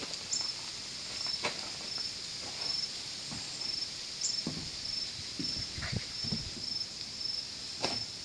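Insect chirping at dusk: a high, even chirp repeating about twice a second, with a few faint rustles and knocks.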